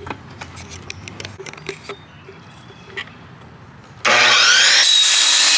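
Faint clicks and knocks of wood being handled, then about four seconds in an electric miter saw starts loudly with a rising motor whine and cuts into a length of pre-primed 1x3 pine board.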